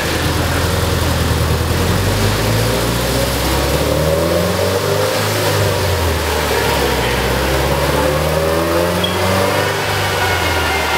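Subaru Impreza 2.5 RS flat-four engine running through a loud aftermarket catback exhaust at light throttle, its note rising and falling gently.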